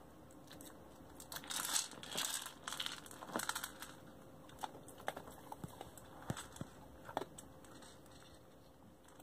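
A dog nosing a plastic treat-dispensing ball about on a wooden floor: scattered clicks and knocks from the ball and the kibble inside it, with a stretch of rustling about two seconds in.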